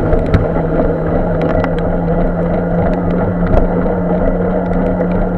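Steady road and wind noise from riding a bicycle on a wet street, with a steady low hum throughout and scattered light ticks.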